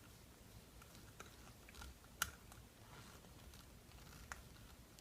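Near silence broken by a few faint clicks of a lamp socket's small parts being handled as wire is tightened under its terminal screws, with one sharper click a little past two seconds in.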